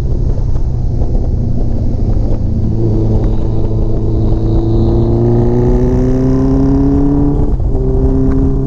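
Honda CBX 750 cafe racer's inline-four engine pulling under load, its pitch rising slowly as the bike accelerates, with a brief break near the end before it pulls on steadily. Heavy wind rush on the microphone underneath.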